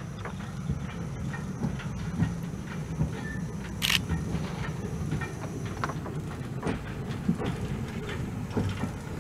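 Narrow gauge steam locomotive running slowly toward the listener: a steady low rumble with scattered clanks and clicks from the wheels on the track, and a brief high hiss about four seconds in.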